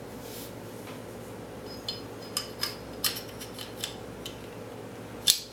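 Small steel revolver parts clicking and tapping as the hand, spring and pawl are fitted back into the frame, a few separate light clicks and one sharper click near the end.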